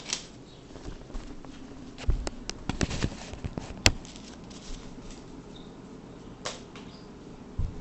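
Cardboard fan blades being handled and measured: scattered clicks, taps and light rustles, with a cluster of taps about two to three seconds in, a sharp click near the middle and a soft thump near the end.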